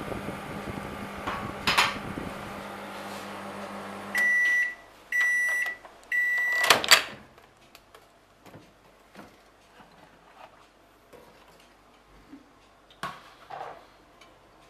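Microwave oven running on high with a steady hum, which stops about four seconds in. Three long beeps follow, signalling that the cooking time is up, then the loud click of the door latch opening and a few faint knocks.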